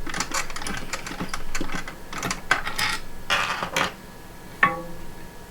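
Hands cleaning the screen of an Anycubic Photon M3 resin printer: a string of light clicks and short rubbing swishes, with a sharp ringing tap about four and a half seconds in.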